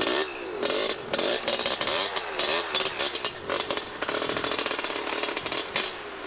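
A small vehicle engine revving up and down with a rough, crackling sound, typical of wheels spinning for traction in deep snow.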